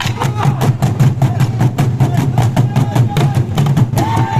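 Ensemble of traditional Burundian drums beaten in a fast, driving rhythm, about five to six strikes a second. Near the end a long high held call starts over the drumming.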